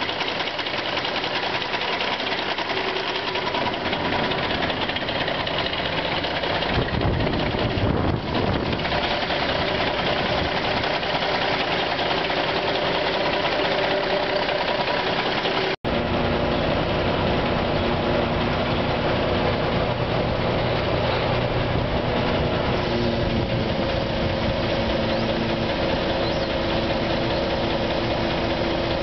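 A 1986 GMC Brigadier truck engine idling steadily, heard up close at the open engine bay.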